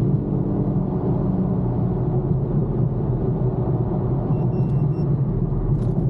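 Steady in-cabin drone of an Infiniti M37S at highway speed: its 3.7-litre V6 running at cruise, mixed with tyre and road noise.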